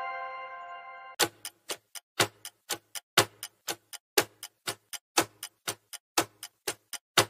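A chime's ringing fades out, then about a second in a clock-like tick-tock starts: about four sharp ticks a second, alternating louder and softer. This is a quiz countdown-timer sound effect counting down the time to answer.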